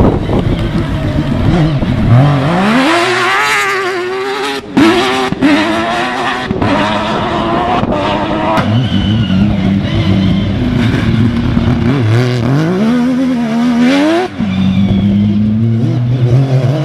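Rally car engine revving hard under acceleration on a dirt stage, its pitch climbing and then dropping sharply at each gear change, several times over.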